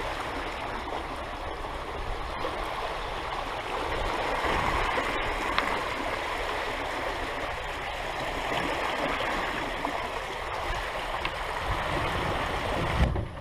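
Water rushing and gurgling along the hull of a catamaran under sail, a steady churning wash; a single thump near the end, after which the sound drops away sharply.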